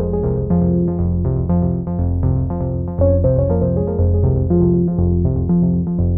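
Background music: synthesizer and keyboard notes changing about twice a second over a steady low bass line.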